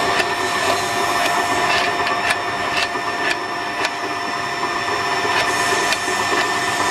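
Electric winch running, its motor and reduction gearbox giving a steady mechanical hum with several constant whining tones as steel wire rope winds onto the drum. Light sharp clicks come now and then over the hum.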